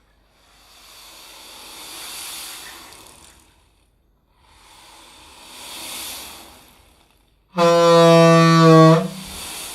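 Mouth-made sound effects: two long breathy whooshes that swell and fade, then a loud, steady horn-like note held for about a second and a half near the end.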